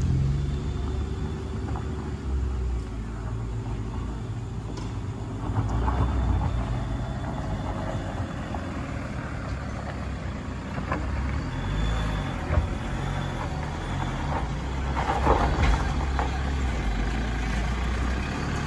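Toyota HiAce high-roof van's engine running under load as it climbs a rough dirt-and-gravel slope and passes close by, a steady low hum with louder swells about six seconds in and again near the end.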